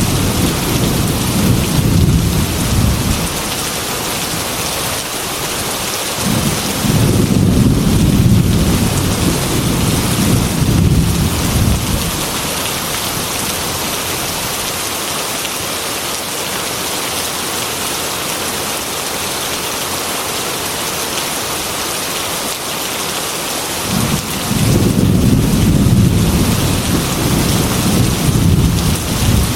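Heavy rain falling steadily on a glass window, an even hiss throughout, with three long rolls of low thunder: one fading out in the first few seconds, one lasting about six seconds starting a fifth of the way in, and another starting near the end.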